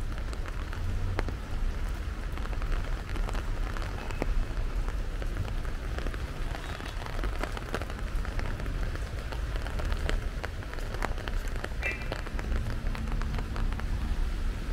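Heavy rain falling steadily on wet paving and on the stall canopies overhead, with many single drops ticking close by.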